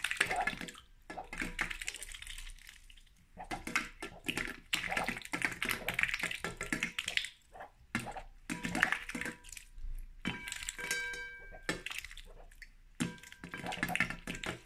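A duck's bill dabbling and snapping in a shallow bowl of water as it catches small fish: rapid, irregular wet clicks, taps and small splashes, coming in bouts with short pauses.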